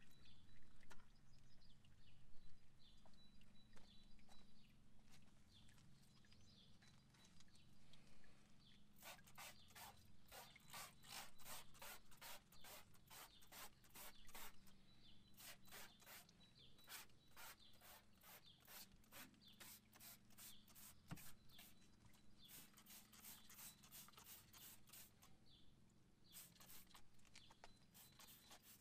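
Wheel arch cleaning: quiet runs of quick, short strokes, about three a second, starting about a third of the way in, with short pauses between runs.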